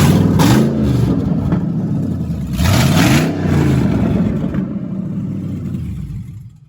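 2007 Chevy Silverado Z71 engine running with the exhaust removed, open manifolds, blipped twice with the pitch climbing then falling back to idle, then shut off near the end.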